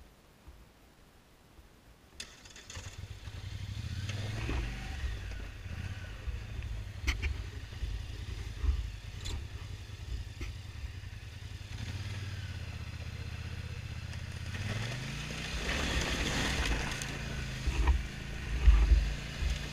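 ATV engine coming on about three seconds in and idling steadily, then revving with a rising pitch as the quad pulls away, with knocks and clatter from the rough trail near the end.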